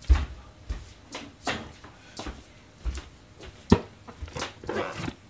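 Scattered clicks and knocks of kitchen items being handled: about a dozen short sharp taps with a few dull thumps, the loudest a single knock near the end of the fourth second.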